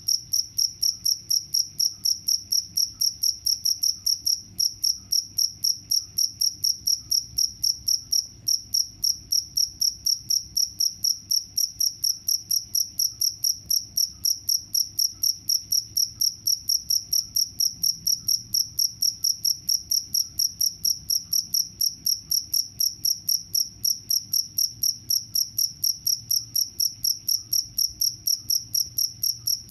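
Cricket chirping: a steady, high-pitched pulsed chirp repeating evenly, about four to five chirps a second.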